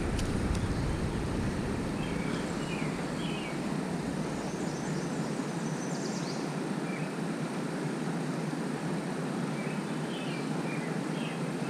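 Steady rush of water pouring through a lake spillway, with small birds chirping over it several times and a brief high trill in the middle.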